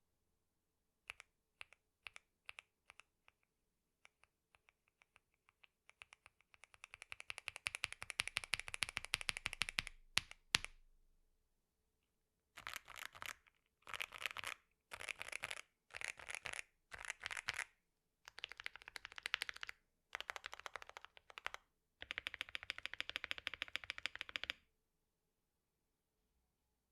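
Mechanical keyboard with Akko Dracula linear switches being typed on: a few single keystrokes, then a fast run of typing that grows louder, then several short bursts of quick typing with pauses between.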